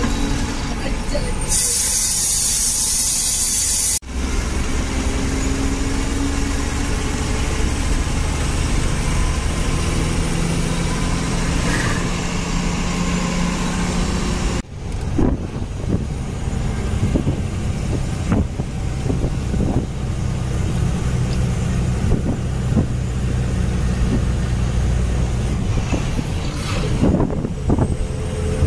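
Bus engine running and road noise as the bus drives along, with a loud hiss for about two seconds near the start. The sound breaks off abruptly twice, and rattling knocks come through in the second half.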